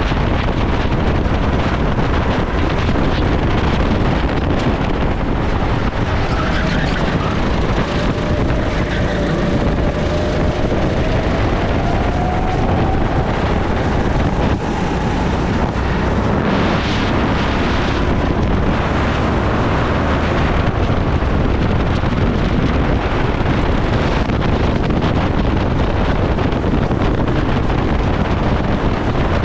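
Go-kart engine running at racing speed, heard from the kart itself under heavy wind buffeting on the microphone. The engine note drops through a corner during the first third, then climbs again.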